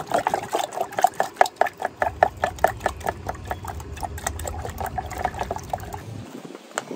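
A corroded outboard-motor wiring connector jiggled up and down in a plastic jar of baking-soda water: quick, splashy taps and sloshes, several a second, stopping about a second before the end. It is being washed to clear corrosion from its contacts.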